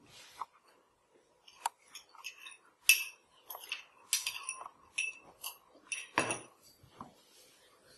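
A metal spoon clinking against drinking glasses a dozen or so times while a muddy soil-and-water mixture is handled and poured, with a duller, heavier knock about six seconds in as a glass meets the table.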